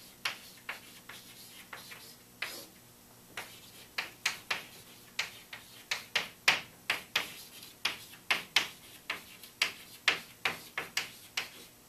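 Chalk writing on a blackboard: a run of short, irregular taps and scratches as the letters are drawn, sparse at first and coming quickly from about four seconds in.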